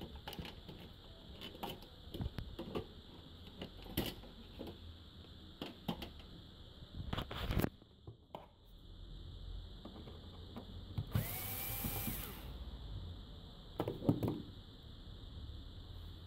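Scattered clicks and knocks from handling the metal chassis and circuit boards of an opened LED TV, with a small power tool's motor whirring up once for about a second and a half, around eleven seconds in.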